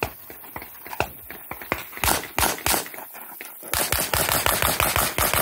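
Competition pistol being fired in quick succession: a fast group of three shots about two seconds in, then a longer rapid string of shots from nearly four seconds in to the end, a few fainter clicks before the first shots.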